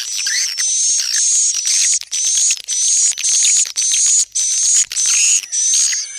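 Swiftlet call recording: rapid, repeated high chirps of swiftlets, about two a second, each a thin slightly rising note with twittering beneath, the lure sound played to draw swiftlets into a nesting house.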